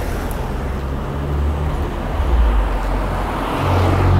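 Two cars driving past close by one after the other, tyre and engine noise swelling as the second car passes near the end.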